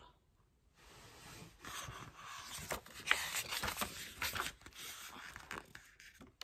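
Glossy photobook pages being turned and rubbed by hand: paper rustling and swishing with a few sharp ticks, starting about a second in.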